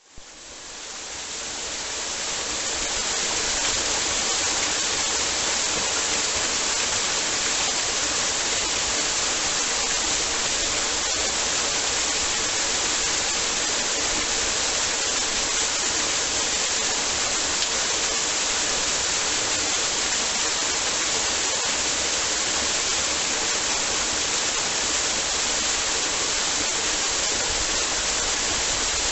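Steady, even rush of water, fading in over the first few seconds and then holding constant.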